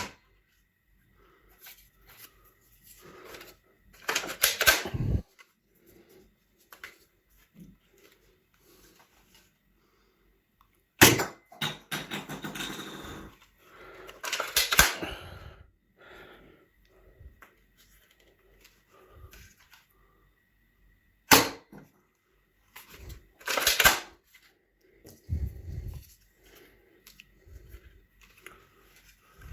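Soft-bullet toy gun being handled and fired: sharp single snaps about 11 and 21 seconds in. Between them come bursts of plastic clicking and rattling from the mechanism, with quiet gaps.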